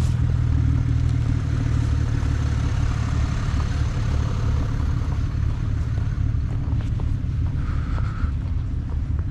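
A vehicle engine idling with a steady low rumble. A short high tone sounds about eight seconds in.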